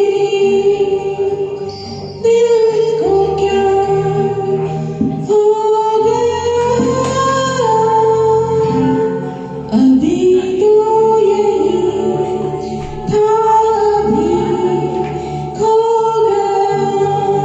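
Music: a woman singing long held, sliding notes over a song's instrumental backing track.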